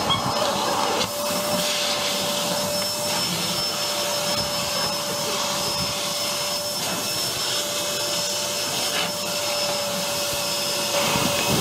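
Vacuum cleaner running steadily, with a constant high-pitched motor whine over its airflow noise.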